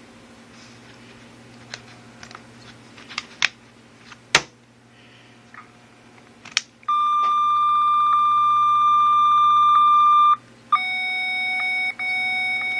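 Light taps and clicks on a faulty Casio MA-10 alarm clock, then its electronic beeper sounds a steady tone for about three and a half seconds, cuts off, and comes back at a different pitch. The clock is failing and sets off random sounds when tapped, as if it were circuit-bent.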